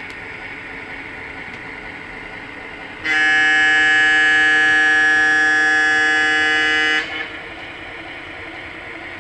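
Horn of an MTH HO-scale Little Joe E20 model electric locomotive, played by its DCS digital sound system through the model's small speaker. One steady chord of several tones, held for about four seconds from about three seconds in, then cut off sharply, over a steady hiss.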